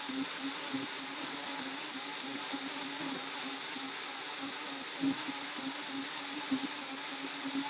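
Two countertop blenders, a VAVA and a Ninja, running together at full speed on a seven-minute soup blend: a steady motor noise with an unevenly pulsing hum and a few light knocks.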